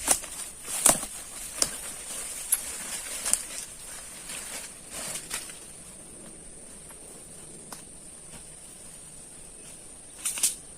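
A steady high-pitched insect drone, like crickets, with irregular rustling and clicking handling noises, frequent in the first half and again briefly near the end.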